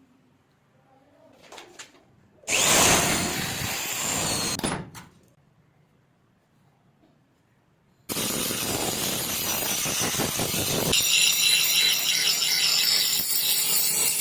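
Power tool abrading a knife blade, heard in separately cut clips: a short loud burst, then a longer steady run starting abruptly past the middle, where a high whine joins in a few seconds later.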